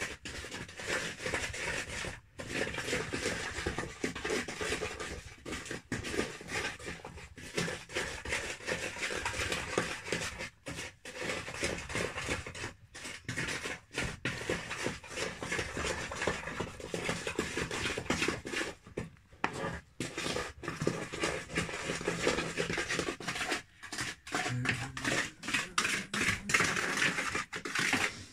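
A utensil stirring and scraping round a mixing bowl, a rough scratching that keeps going with brief pauses every few seconds.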